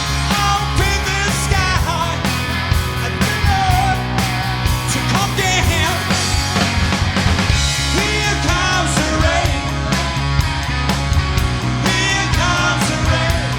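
Rock music: a band playing at full volume, with drums keeping a steady beat under wavering sung or lead lines.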